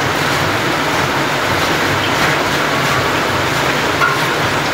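Steady, loud rushing noise of large-scale cooking: frying in big pans over gas burners, with no pauses or single strikes.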